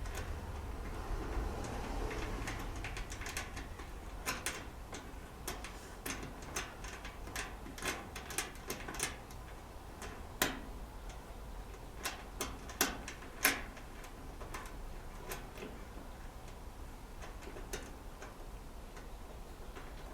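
Irregular light clicks and ticks of a nut driver working a screw loose on an electric dryer's terminal block, with the metal screw handled by hand; a few clicks stand out louder partway through.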